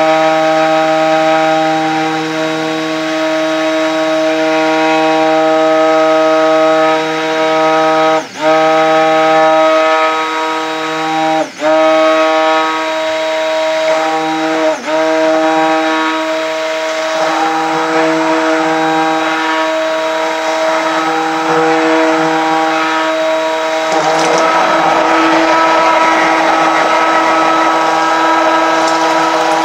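Stainless-steel stick (immersion) blender running in a bowl of soap batter, a steady motor whine that cuts out briefly three times, about 8, 11 and 15 seconds in. Near the end the sound turns rougher and noisier.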